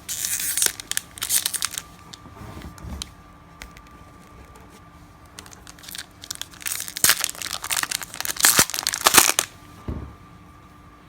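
Wax-paper wrappers of baseball card packs being torn open and crinkled, in a burst at the start and a longer spell from about seven to nine and a half seconds in.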